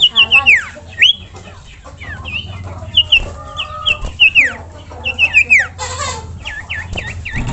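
Common iora calling: a quick series of sharp whistled notes, many sliding down in pitch, with a brief harsh noisy burst about six seconds in.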